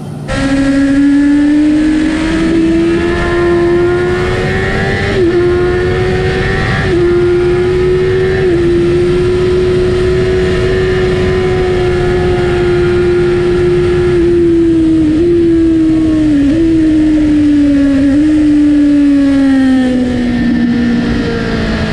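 Suzuki GSX-R750 SRAD's inline-four engine with an aftermarket exhaust, heard onboard at full throttle around a track: it climbs in revs over the first few seconds, holds high with several short dips at gear changes, then slowly winds down over the last several seconds.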